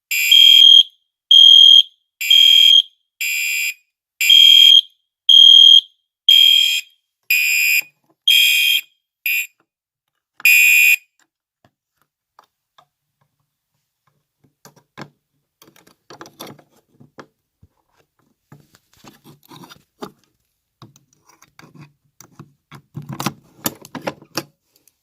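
Gentex and Genesis fire alarm horns sounding in loud, short repeated blasts about once a second, the blasts alternating between two slightly different tones. The horns stop about eleven seconds in, leaving only faint clicks and handling noise.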